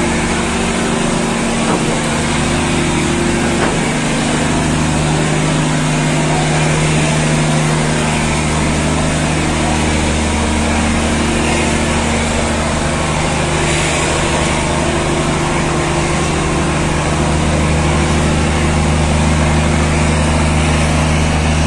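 Steady low drone of a river passenger launch's engines, several constant hum tones over an even rushing noise.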